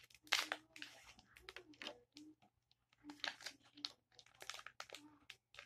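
Foil wrapper of a Pokémon booster pack crinkling and tearing as it is opened and the cards are pulled out: scattered short crackles and rustles.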